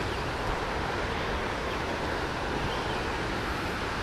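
Steady rush of river water from a nearby waterfall, an even noise with no distinct events.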